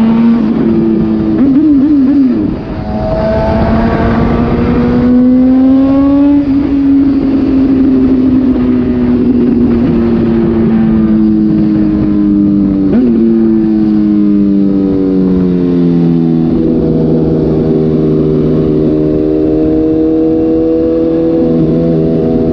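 Suzuki GSX-S750's inline-four engine running through an SC-Project exhaust with the dB killer removed, under way. The note dips briefly about two seconds in, then holds steady, drifting slowly, and settles lower later on.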